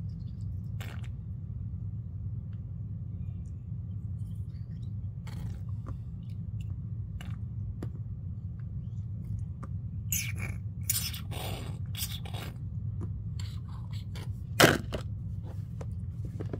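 Handling noise from a toy feeding bottle against plastic baby dolls: scattered scrapes and clicks, busier in the second half, with one sharp loud click near the end, over a steady low hum.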